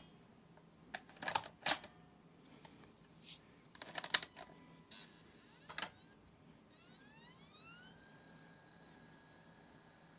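Optical disc drive: several sharp clicks from its mechanism, then about seven seconds in the spindle motor spins up with a rising whine that levels off into a steady high-pitched whine.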